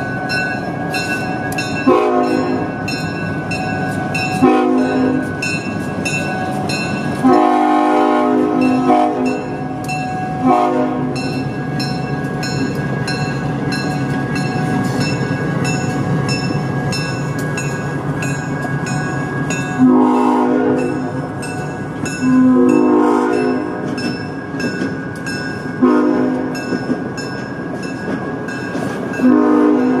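A diesel locomotive's five-chime air horn, which the uploader takes for a Nathan K5HL, blowing a series of blasts: several back to back in the first ten seconds and again from about twenty seconds in. A grade-crossing bell dings steadily throughout, over the rumble of the passing passenger cars.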